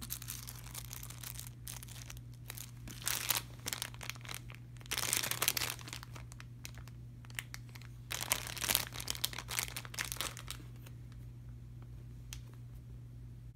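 Crinkling of a squishy toy's plastic package as it is handled, in several bursts, over a steady low hum. It goes quieter after about ten seconds, leaving scattered light taps.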